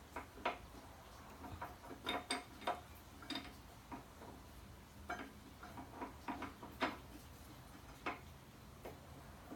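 Irregular light metallic clicks and clinks as brake pads and caliper parts are handled and worked into place by hand.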